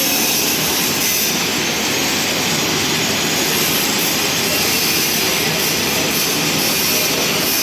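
Electric welding arc burning with a steady, even hiss.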